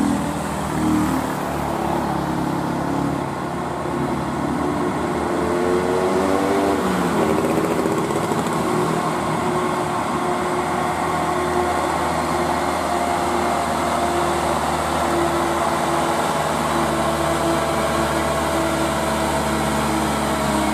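Diesel engine of an old, sand-laden Mitsubishi Canter dump truck pulling hard up a grade. The engine note rises and shifts around six to eight seconds in, then holds steady.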